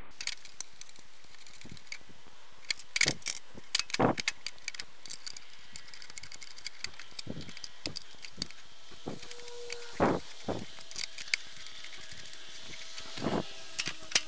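Scattered metal clicks and clinks as a steel indicator plate and its screws are handled and fitted onto a garden tractor's transmission housing, with a few louder knocks about 3, 4 and 10 seconds in.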